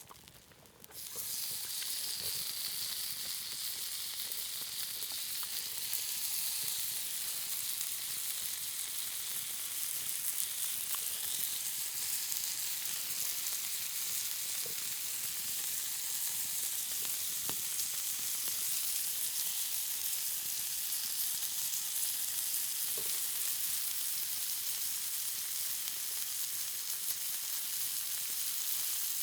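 Meat sizzling on a hot stone grill over a campfire, the sizzle starting suddenly about a second in as the meat goes onto the stone, then a steady hiss with a few faint pops.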